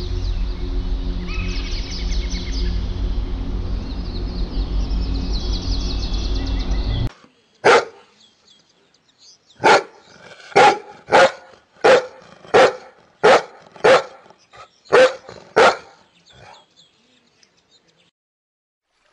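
Steady background music with birds chirping, which cuts off suddenly about seven seconds in. Then a shepherd-type dog barks about ten times, single barks spaced half a second to two seconds apart, the last one faint.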